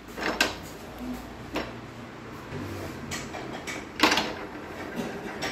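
A few scattered metal clicks and knocks as a threaded bearing-race press tool is fitted onto a motorcycle's steering head. The loudest knock comes about four seconds in.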